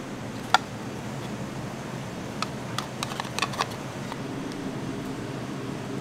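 Plastic rice paddle knocking against a rice cooker pot and a bowl as cooked rice is scooped and pressed in: one sharp click about half a second in and a cluster of lighter clicks around three seconds, over a steady low kitchen hum.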